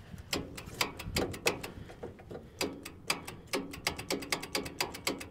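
Starter solenoid of an old Case tractor clicking over and over at an irregular pace, about five clicks a second, some with a brief buzz, without the engine cranking: the sign of a poor electrical connection to the starter.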